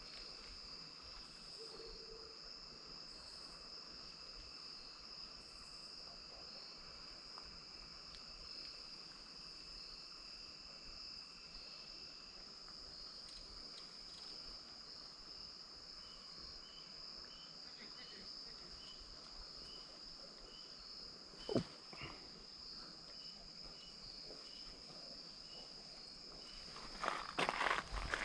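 Insect chorus: a steady high-pitched drone with slower, evenly repeated chirps over it. A single sharp knock about three quarters of the way through, and rustling like footsteps near the end.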